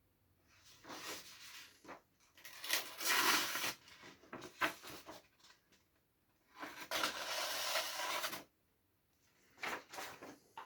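Kitchen knife blade being stroked against a Tormek T-8 sharpening wheel: five scraping passes of one to two seconds each, separated by short pauses.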